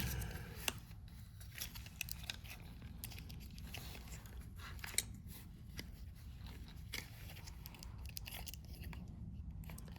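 Faint clicks and taps of plastic headphone parts being handled, with a sharper click about five seconds in, over a low steady hum.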